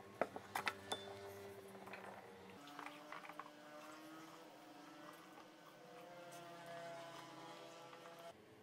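Malt grains and barley flakes tipped into an aluminium brewing pot, with a few sharp clicks in the first second. Then the mash is stirred by hand and with a wooden spoon, soft squishing and ticking under a faint steady hum.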